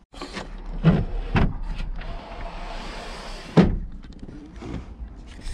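Handling noises at a boat's cabin doorway: two knocks about a second in, a rasping scrape, then a loud thud a little past the middle.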